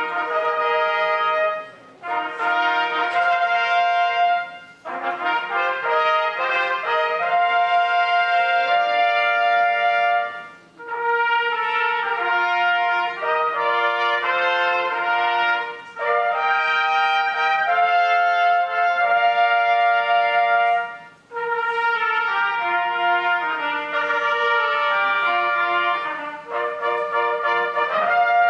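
Concert wind band playing, with trumpets and trombones to the fore, in phrases broken by brief pauses.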